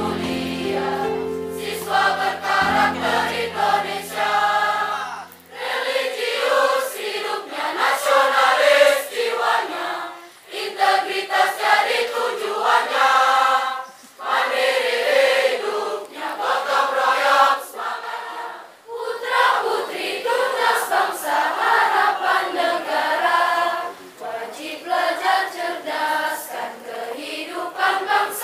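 A large choir of school students singing together in phrases. Low held accompaniment notes sound under the voices at first and stop about five seconds in, leaving the voices to carry on alone.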